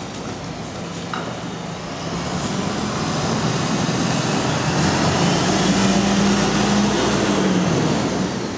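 A large vehicle running close by: a steady low hum under a loud rushing noise, growing louder over the first half and then holding.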